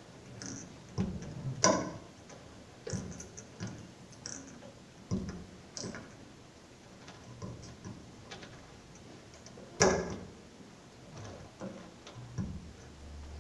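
Irregular knocks and slaps of dancers' feet and hands against a studio floor, with one sharp, louder hit about ten seconds in.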